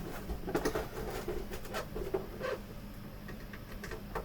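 Blade and prying tools working at the plastic bezel of a Samsung U32J590UQU monitor: small irregular clicks and scrapes of plastic as the casing is probed at its top edge.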